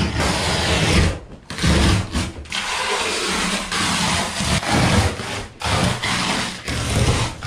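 Old carpet liner being scraped and ripped off the inside of a boat's hull by hand and with a small blade tool: rough scraping and tearing in uneven bursts, with a few short pauses.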